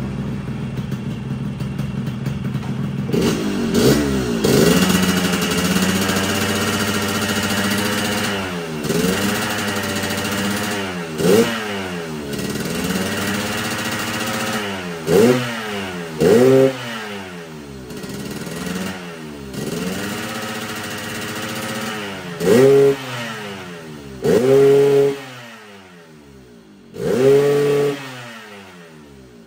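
Yamaha RX-King 135cc two-stroke single-cylinder engine running through a full-set original exhaust with a custom 'ngorok' (growling) baffle. It idles, rises in revs about four seconds in, then gets a string of short throttle blips, each a quick rise and fall in pitch. On the standard main jet it growls only mildly: 'kurang ngorok'.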